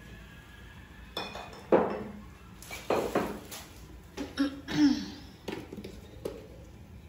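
Scattered clinks and knocks of kitchenware, about eight sharp strikes spread over several seconds, as jars and utensils are handled beside the wok.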